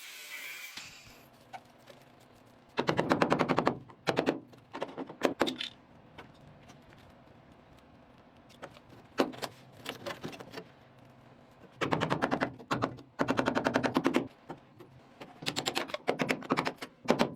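A hammering power tool firing in repeated short bursts of rapid strikes, each burst about a second or less, with pauses between them.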